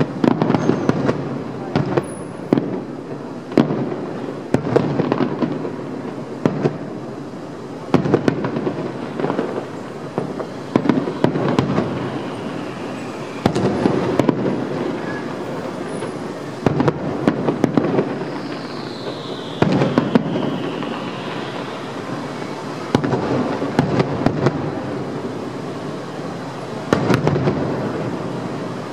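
Aerial fireworks shells bursting in quick succession: a steady run of sharp bangs, each followed by a rumbling echo.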